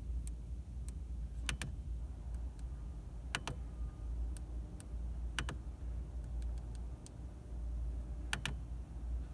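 Dashboard radio and clock buttons being pressed: sharp double clicks every couple of seconds, with fainter ticks between, while the radio presets and clock are set again. A steady low rumble runs underneath.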